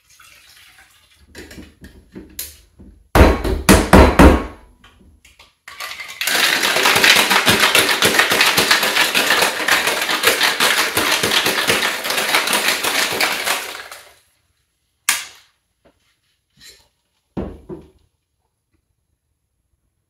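Ice shaken hard in a metal cocktail shaker: a dense, steady rattle lasting about eight seconds, until the drink is well chilled. It follows a soft pour of liquid into the tin and several loud clanks a few seconds in. Near the end come a few sharp metallic knocks as the shaker is handled again.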